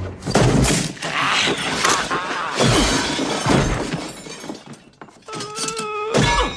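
Slapstick film sound effects of a cascade of objects crashing down: a dense run of breaking and shattering impacts that thins out about five seconds in. A drawn-out yell follows near the end.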